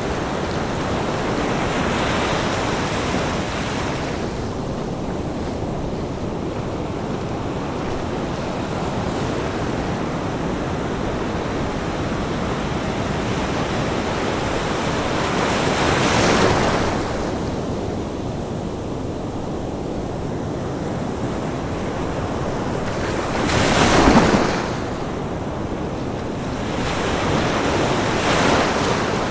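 Ocean waves washing onto a beach: a continuous rush of surf, with louder breakers swelling up about halfway through and again twice near the end.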